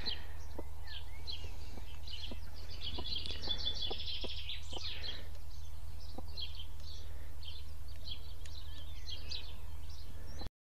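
Small birds chirping and peeping in many short high notes, busiest about three to five seconds in, over a steady low hum with a few faint clicks; the sound cuts off abruptly near the end.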